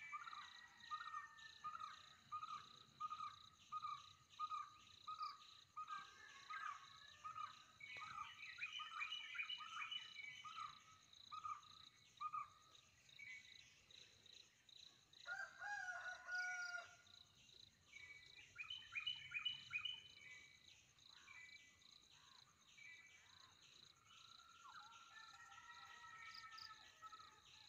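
Wild birds calling in woodland: a clear note repeated about twice a second for the first dozen seconds, with chirps and trills over it and a thin steady insect whine behind, all faint.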